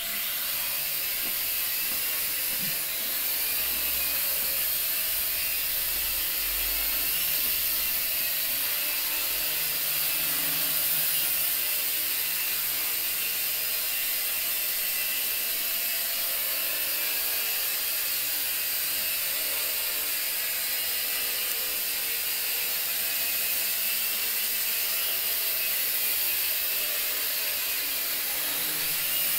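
J Perkins Twister micro quadcopter's four small motors and propellers starting up suddenly and then running as a steady, high-pitched buzzing whine while it hovers, the pitch wavering slightly with throttle.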